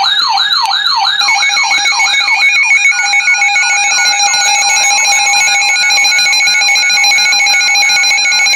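Electronic siren with a fast pitch sweep, about three sweeps a second, overlaid from about a second in by steady and pulsing electronic alarm tones. The sweeps fade out about three seconds in, leaving the alarm tones.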